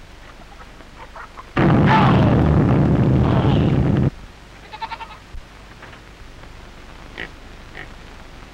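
An explosion on an early-1930s film soundtrack: a loud blast about one and a half seconds in that holds for about two and a half seconds and then cuts off suddenly. A few short, faint high-pitched cries follow.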